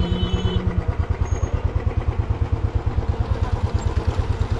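Royal Enfield Bullet's single-cylinder four-stroke engine running at low revs, an even low thump of about eight to nine beats a second.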